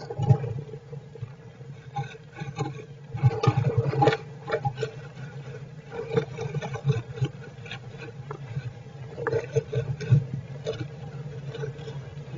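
Squirrels shifting about in a wooden nest box: irregular scratching, rubbing and small taps against the wood, bunched into busier spells, over a steady low hum.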